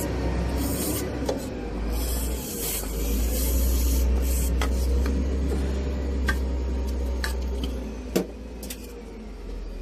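Electrical terminals of a dump truck's magnetic switch being cleaned with contact cleaner: short bursts of hissing and rubbing, the longest about two to four and a half seconds in, over a steady low rumble. A few sharp clicks follow, the loudest about eight seconds in.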